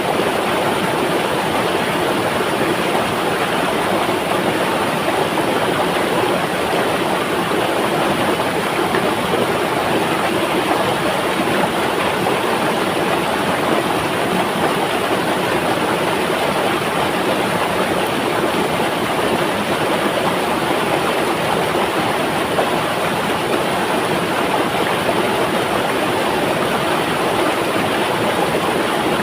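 Flowing river: a steady, unbroken rush of water.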